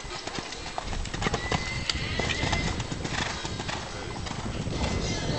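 A horse's hoofbeats on the sand of a show-jumping arena as it canters past close by, a run of irregular soft knocks.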